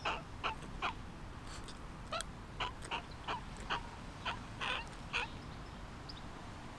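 Fledgling carrion crow calling with its beak wide open: a quick series of about a dozen short calls, roughly two a second, that stops a little after five seconds in.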